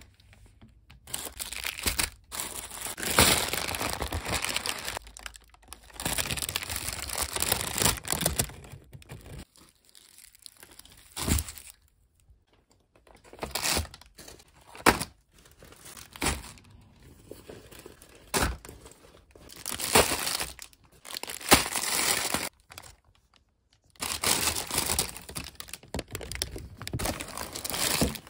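Paper and plastic grocery bags rustling and crinkling in irregular bursts as groceries are handled, with a few sharp knocks of items being picked up and set down.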